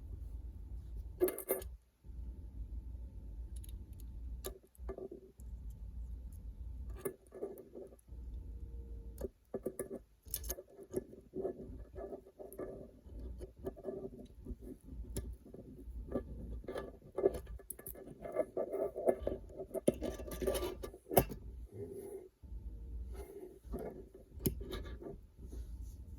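Small gun parts of a Glock trigger assembly clicking, tapping and scraping as they are handled and fitted together by hand, busiest near the end, over a steady low hum.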